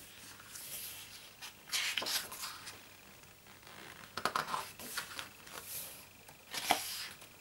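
Pages of a photobook being turned by hand: a few papery swishes and rustles, the sharpest one near the end.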